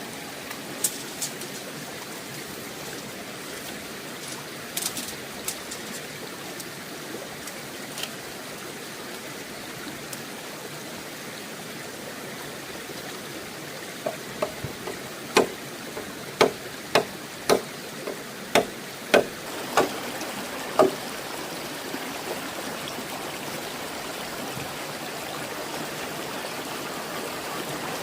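Steady running water, with a run of about eight sharp knocks in the middle, roughly one every half second to a second.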